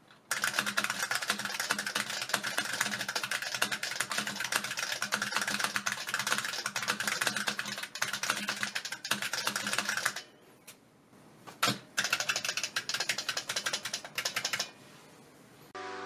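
Fast typing on a Model F keyboard's buckling-spring keys: a dense, rapid clatter of key clicks for about ten seconds. It stops, one single keystroke follows, then a few more seconds of fast typing.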